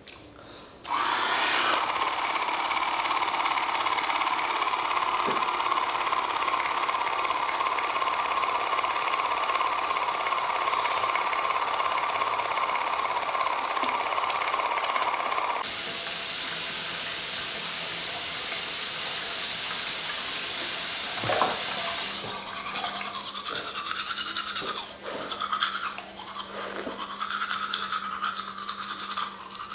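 Small electric motor buzzing steadily for about fourteen seconds. It then gives way to a loud, even hiss lasting about six seconds, followed by quieter, irregular handling sounds.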